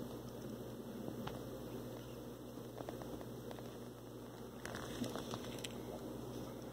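Aquarium filter running with a faint, low steady hum, with a few soft clicks about five seconds in.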